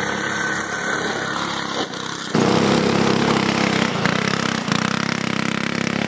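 Small go-kart engine running as the kart drives. About two seconds in it cuts suddenly to a louder go-kart engine running steadily.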